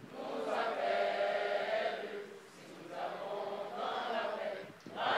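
Large group of voices singing together in unison in long held notes, with short breaks between phrases.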